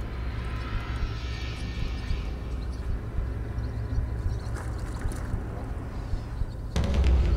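Wind buffeting the microphone, a steady low rumble, with a small spinning reel being cranked on an ultralight rod during the retrieve. About seven seconds in, a louder burst of noise begins.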